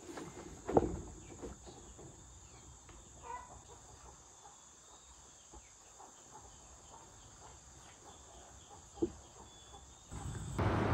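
Quiet rural ambience with a steady high insect drone, a couple of sharp knocks and a brief bird or fowl call. About ten seconds in, a much louder steady noise with a low hum cuts in.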